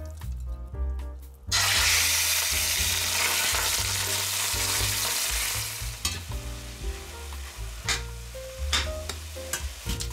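Ground beef dropped into hot olive oil in a stainless steel pot, sizzling loudly from about a second and a half in. The sizzle drops back after about four seconds, and a handful of sharp scrapes follow as the frying mince is stirred in the pot. Light background music underneath.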